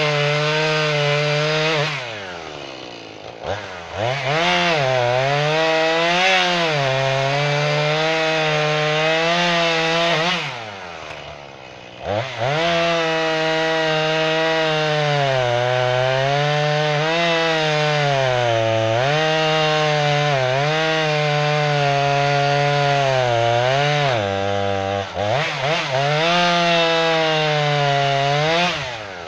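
Jonsered two-stroke chainsaw cutting red oak at full throttle, its pitch wavering as the chain bogs in the wood. The engine drops to idle and revs back up three times, about 2, 11 and 25 seconds in, and drops again at the very end. The chain is hand-filed and somewhat damaged, so it is not cutting as well as it could.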